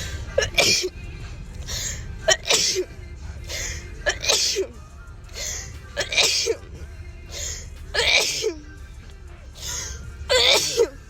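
A person sneezing in a rapid series, about six sneezes roughly two seconds apart, each with a short voiced onset into a noisy burst and quieter breaths between them. Music plays underneath.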